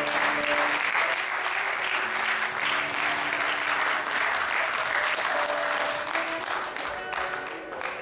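Church congregation applauding, dense clapping over faint instrumental music, the applause thinning out near the end.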